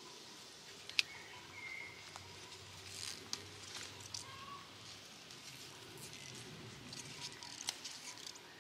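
Purple-podded pea vines rustling as pods are picked by hand, with a few sharp snaps as pods come off: one about a second in, one a little after three seconds, and one near the end.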